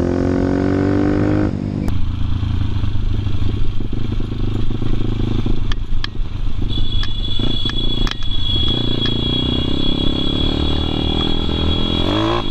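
Motorcycle engine revving up, then cutting abruptly to a low steady engine rumble with scattered clicks. A steady high-pitched tone joins about halfway through, and the engine revs up again near the end.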